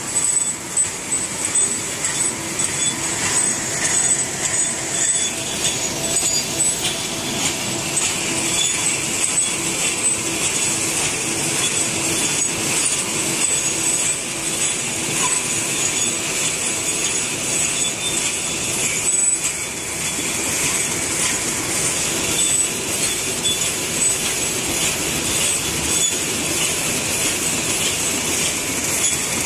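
Automatic napkin folding, printing and cutlery-wrapping machine running: a steady, rapid mechanical clatter with a thin, high whine on top.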